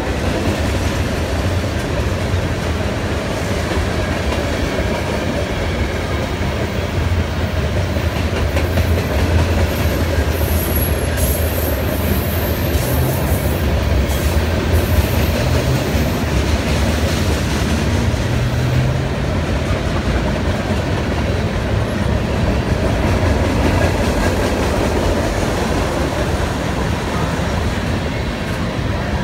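Freight cars of a manifest train (tank cars, boxcars, covered hoppers) rolling past close by: a steady loud rumble and clatter of steel wheels on the rails, with a few faint high squeals about midway.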